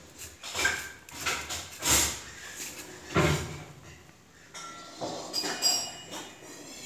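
Stainless steel dog bowl knocking, clinking and scraping on a marble floor as a husky noses a slice of bread out of it, in several irregular knocks.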